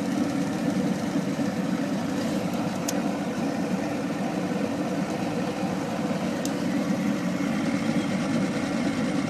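Chrysler 85 hp three-cylinder two-stroke outboard motor running steadily at an even speed.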